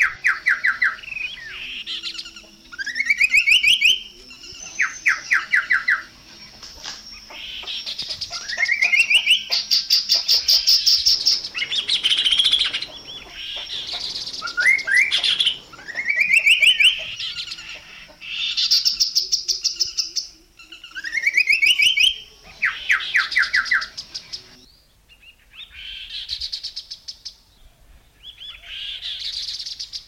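Chestnut-capped babbler singing: repeated phrases, about every three seconds, of fast pulsed notes sweeping upward in pitch, with harsher rattling notes between them.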